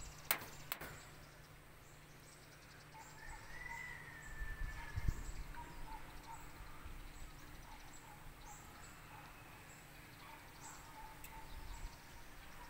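Quiet outdoor background with faint bird chirps scattered through it and a steady low hum, plus a brief soft knock about five seconds in.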